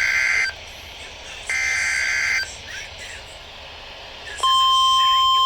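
Emergency Alert System SAME header: raspy digital data bursts about a second long, the last one ending about two and a half seconds in. About four and a half seconds in, a loud, steady single-pitch alert tone starts, the warning's attention signal.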